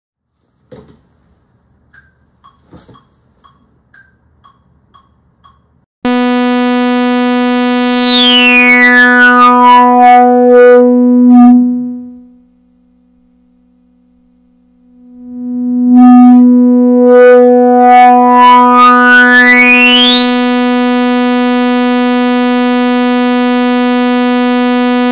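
A single sawtooth note on a synthesizer, its filter resonance at maximum. The cutoff sweeps down, and a whistling resonant peak glides down through the note's overtones until the sound closes off to almost nothing. The cutoff then sweeps back up to the full bright buzz. A few faint clicks come before the note starts.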